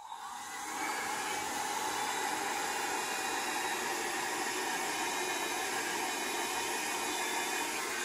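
Revlon hot-air dryer brush with its brush head removed, running steadily as a blower. It makes an even whir of motor and rushing air, which comes up to full strength within the first second.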